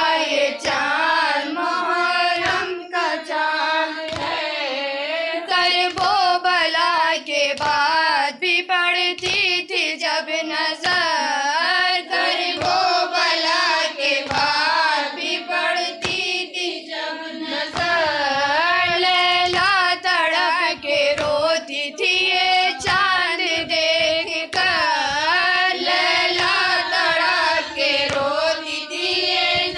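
A high female voice reciting a noha, the Urdu Muharram mourning lament, sung in long wavering notes. Short, regular beats of hand-struck matam (chest-beating) keep time beneath it.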